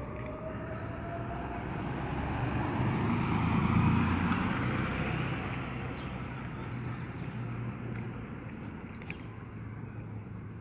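A motor vehicle passes by, its engine and tyre noise swelling to a peak about four seconds in and then fading away.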